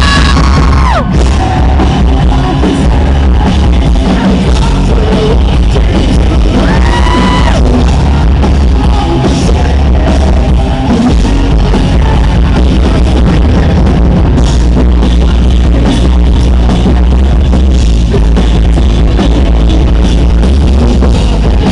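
Live rock band playing loud: electric guitars, bass guitar and drum kit, heavy in the low end. A long held high note ends about a second in, and another rises and holds briefly around seven seconds in.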